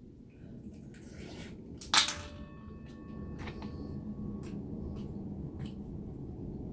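Boiled cockle shells handled and pried open by hand, with light clicks of shell now and then. About two seconds in comes one sharp clink of something hard striking a dish, which rings briefly.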